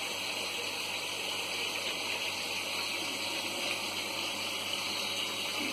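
Water circulating in a six-foot aquarium: a steady, even rushing hiss that doesn't change.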